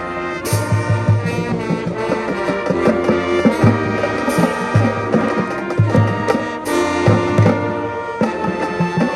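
Marching band playing: held brass chords over steady bass-drum beats, with cymbal crashes about half a second in, again past four seconds and again near seven seconds.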